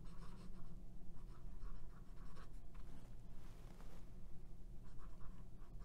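Faint scratching of a Pelikan M400 fountain pen's 14k gold extra-fine nib writing in short strokes on Rhodia paper, the light feedback and slight roughness of an extra-fine nib that is still fairly smooth.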